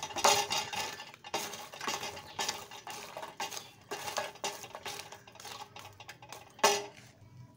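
A cooking utensil scraping and clinking against a pot in quick, irregular strokes, with one louder knock near the end.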